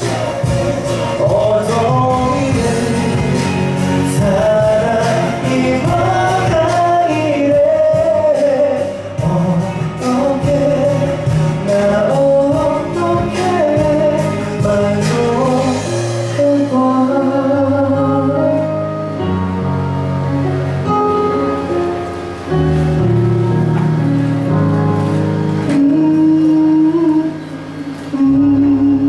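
A male pop singer sings a slow ballad live into a handheld microphone over a backing accompaniment. The beat thins out about halfway through, leaving sustained chords under the voice.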